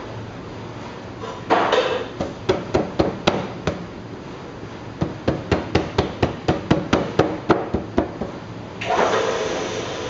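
Rapid sharp taps of a steel hand tool on the rim of an oak barrel head as it is worked down into the barrel, about three to four taps a second with a short pause midway. Near the end comes a rough wooden scraping that lasts about a second.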